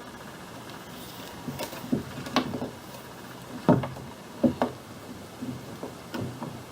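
Scattered light clicks and knocks, about eight in all, from hands working the rudder cables and small fittings at a kayak's rudder control.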